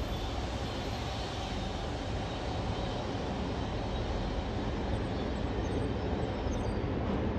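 Norfolk Southern freight train's autorack cars rolling along the track, a steady rumble of steel wheels on rail.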